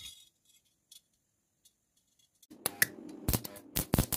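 Stick-welding arc being struck on a steel square tube: a few faint clicks at first, then, from about two and a half seconds in, a run of sharp crackling pops as the electrode is scratched against the steel and the arc sputters.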